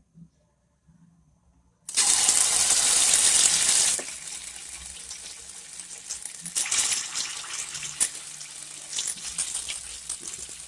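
Hot oil in a wok sizzling as spoonfuls of wet pork patty mixture are dropped in to deep-fry: a sudden loud sizzle about two seconds in, settling into steady frying crackle with scattered pops, which flares up again as a second spoonful goes in.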